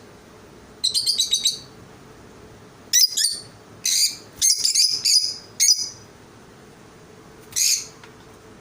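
Small birds chirping in short, rapid bursts of high notes, about five bursts separated by pauses of a second or two.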